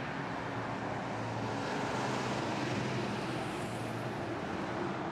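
Aerial ladder fire truck's engine running steadily at idle, a continuous low hum with outdoor noise over it.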